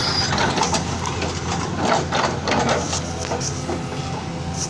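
Tracked hydraulic excavator's diesel engine running with a steady low drone, with irregular knocks and clatter over it.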